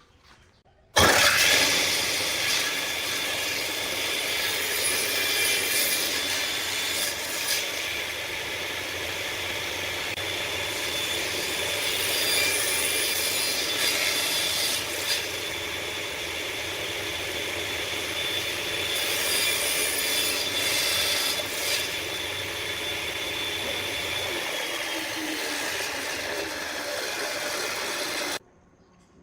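Homemade table saw running and cutting wood: a steady whine with the rasp of the blade in the wood. It starts abruptly about a second in and stops abruptly near the end.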